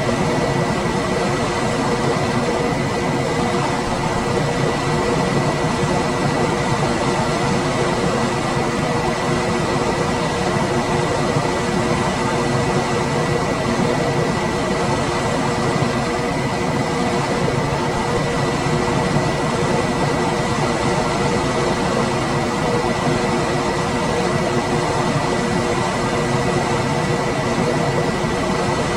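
Room air conditioner running steadily: an even rush of fan air with a thin, high, unchanging whine and a lower hum beneath it.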